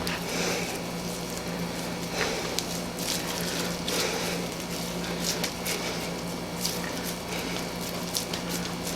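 Soft, scattered handling sounds of hands shaping raw ground beef into balls, with faint clicks and rustles, over a steady low hum.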